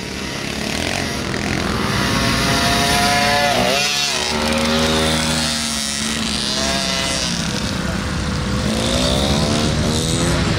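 Dirt bike engines on a motocross track, revving up and down in pitch as riders work the throttle, with a clear drop in revs about four seconds in and climbs again later.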